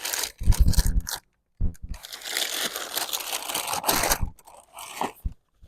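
Stiff plastic crinkling and crunching in irregular bursts as it is handled, with a few dull knocks in the first second and a short pause about a second in.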